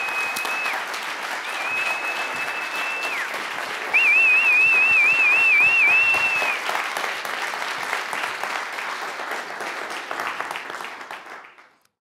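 Audience applauding, with loud whistles from the crowd over it: two held whistles, the second dropping in pitch as it ends, then a louder warbling whistle. The applause fades out near the end.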